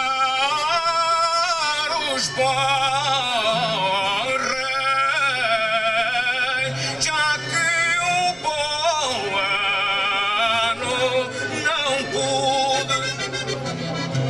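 A man sings an Algarve charola folk song with strong vibrato over guitar accompaniment, with steady low held notes underneath.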